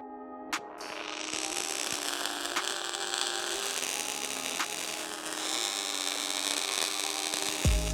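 Electronic music build-up: a swelling hiss-like noise sweep over held synth notes, with a few sharp clicks, leading into a deep bass hit near the end.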